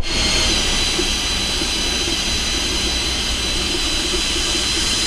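Cordless drill driving a drill pump, running steadily with a high whine as it pumps water through a hose from the boat's water tank; it starts suddenly at the outset.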